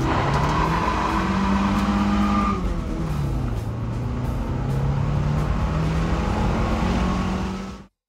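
Car engine accelerating through the gears, heard from inside the cabin: the engine note climbs, drops at a gear change about two and a half seconds in, then climbs again, and cuts off abruptly near the end.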